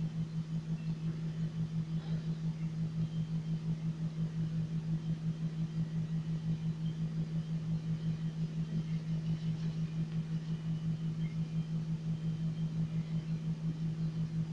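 A steady low hum, unbroken, pulsing quickly and evenly in level.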